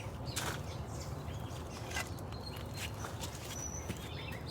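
Outdoor garden ambience: small birds chirping faintly over a steady low hum, with a few short taps or knocks from handling.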